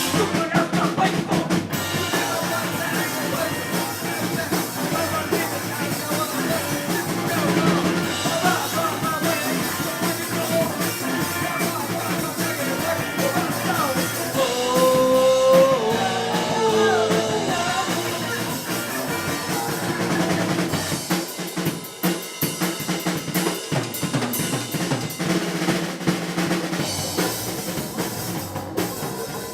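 A live rock-funk band playing, with drum kit, electric guitar and bass guitar. About halfway through, a pitched line bends up and down over the beat.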